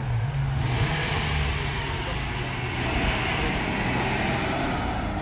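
Classic Nissan Fairlady Z (S30) pulling away and driving past close by, its engine note rising as it accelerates about a second in. It is loudest as it passes, about three seconds in.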